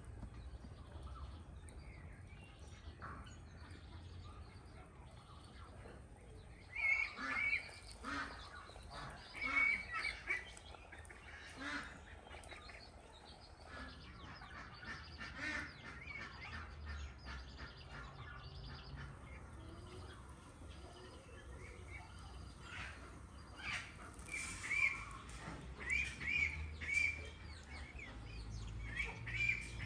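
Farmyard fowl calling in short repeated bursts, a cluster about a quarter of the way in and another near the end, over a low steady background rumble.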